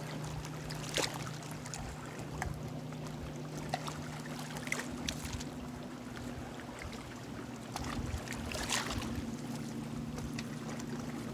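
Low, steady hum of a motorboat engine out on the lake, moving to a higher pitch about halfway through, over small waves lapping and splashing against a wooden dock.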